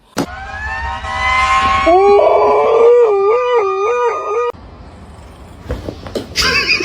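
A pet's long howl: the pitch climbs over the first two seconds, then wavers up and down about three times a second before cutting off suddenly about four and a half seconds in. A shorter, higher wavering cry follows near the end.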